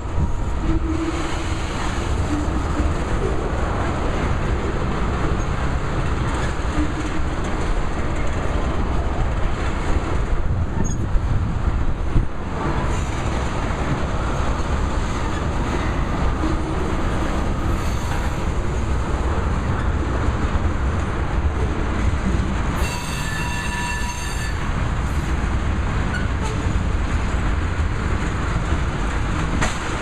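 Railroad tank cars of a slow freight train rolling past, a steady rumble and clatter of steel wheels on the rails, with a couple of sharper knocks a little before the middle. About three-quarters of the way through comes a brief high-pitched squeal, lasting about a second and a half.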